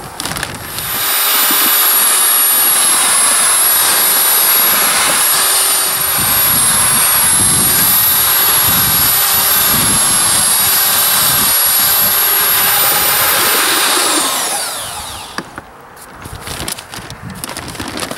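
Electric drill with a paddle mixer running steadily at speed, stirring Thermix chimney insulation mix with water in a plastic tub. About fourteen seconds in it is let off and winds down with a falling whine.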